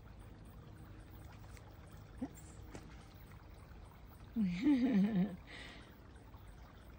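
A person's voice murmuring briefly about halfway through, with a short rustle at the same moment, over a faint steady outdoor hiss.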